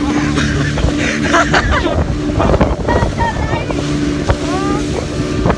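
Speedboat engine running at a steady hum under way, with wind buffeting the microphone and water rushing past the hull.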